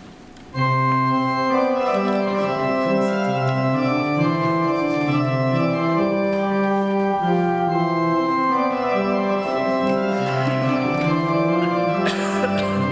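Church organ starting about half a second in and playing held chords over a moving bass line.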